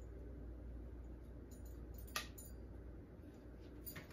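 Pieces of cake being laid by hand into a glass punch bowl: mostly a faint steady room hum, with one light click about two seconds in and another near the end.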